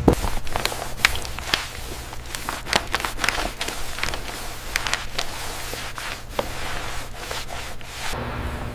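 Hand scraping and rubbing with irregular sharp clicks and knocks, typical of restoration handwork on a part. The rubbing runs on unevenly and stops about eight seconds in, when a steady low machine hum returns.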